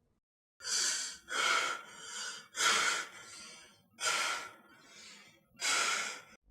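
A person breathing heavily, about five loud, noisy breaths in a row, with short gaps between them.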